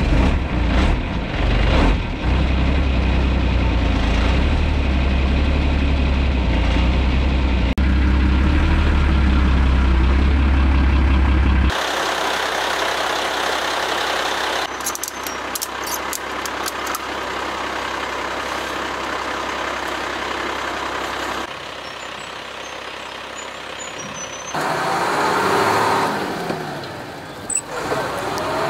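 Mercedes-Benz Unimog U1700L truck's diesel engine running steady and loud for about the first twelve seconds. After an abrupt change the sound drops to quieter vehicle noise, with a run of light clicks around the middle.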